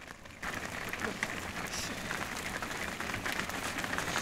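A herd of long-horned cattle walking close by: many hooves stepping and shuffling on road and dirt, making a dense, steady crackle of small steps that starts abruptly about half a second in.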